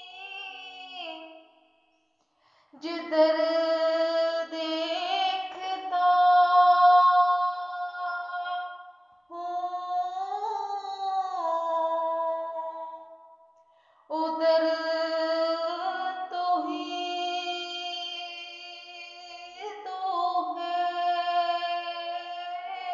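A high voice singing a poem unaccompanied, with long held notes that waver and bend in pitch, in long phrases with short pauses for breath.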